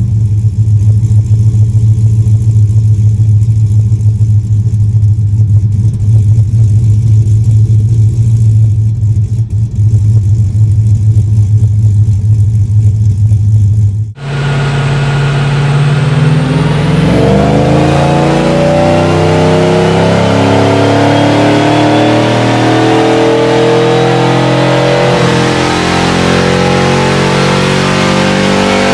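A loud, steady low rumble, broken off suddenly about halfway. Then the cammed V8 of a 2010 Chevrolet Tahoe, with long-tube headers and a Magnaflow catback exhaust, is run up on a chassis dyno: its pitch climbs quickly and then keeps rising steadily in a wide-open pull.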